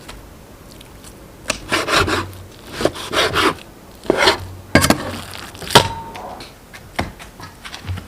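Knife cutting rabbit meat into small pieces on a wooden cutting board: irregular slicing strokes and sharp chops against the board, the loudest a couple of hard chops around the middle.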